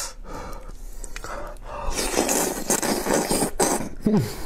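Close-up mouth sounds of eating sauce-glazed braised meat on the bone: biting and sucking the meat off the bone, with irregular smacks and clicks, and a short hum near the end.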